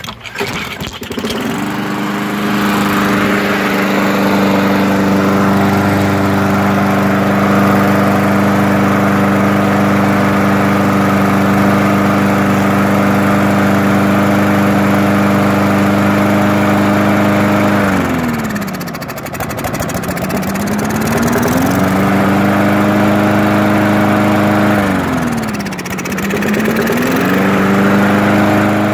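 Lawn mower's small engine catching and running steadily at speed. Twice it bogs down sharply, nearly stalling, and then picks back up, once for a few seconds about two-thirds of the way through and again more briefly near the end. The engine is choking on Seafoam poured into the carburetor while it runs.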